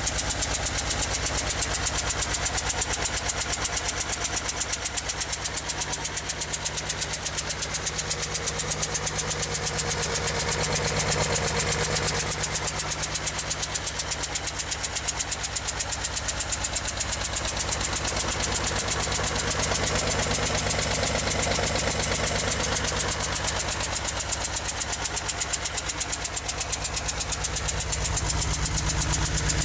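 1975 Porsche 911's air-cooled flat-six idling steadily with a rapid, even ticking throughout. The tick appeared after an engine re-seal job, and its cause is unknown to the owner.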